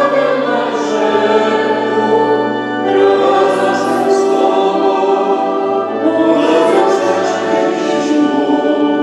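Church choir singing a hymn in long sustained phrases, with held low notes underneath.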